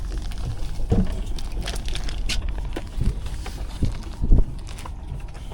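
Wind rumbling on the microphone, with several dull knocks; the loudest comes a little past four seconds in.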